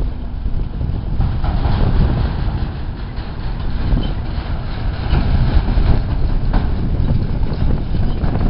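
Grain road train rolling slowly past close by: the prime mover's diesel engine runs with a steady low rumble while the trailers and their many wheels rattle and clatter over the rough track.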